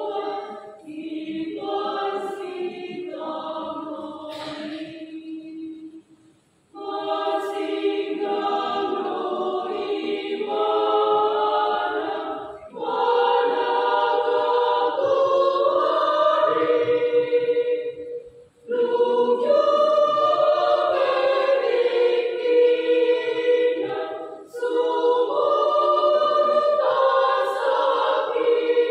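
Church choir singing a hymn in Batak Toba in several voice parts, in long phrases with a short breath between each and a brief full pause about six seconds in.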